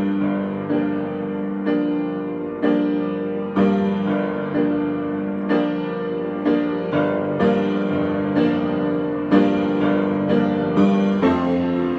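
Solo piano improvisation: sustained chords and notes struck about once a second, each left to ring, with the attacks coming a little closer together near the end.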